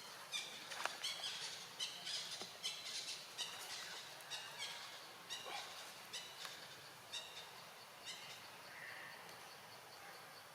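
Many short, high-pitched animal chirps and squeaks in quick succession, thinning out after about five seconds.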